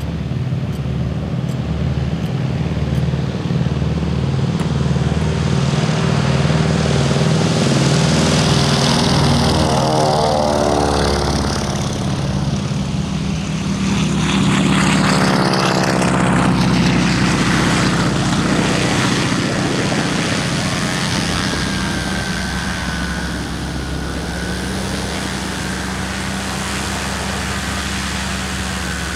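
Radial piston engines of vintage propeller aircraft, a Beechcraft AT-11 and a North American T-6 Harvard, running at power as they pass by. The engine note swells about a third of the way in and again about halfway, with its pitch shifting as they go, then settles to a steadier drone.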